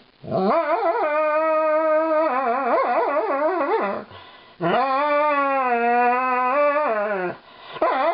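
Alaskan malamute 'singing': long, drawn-out howling calls in protest at being brushed. Two long calls, the first wavering up and down in pitch partway through, the second steadier, with a third starting near the end.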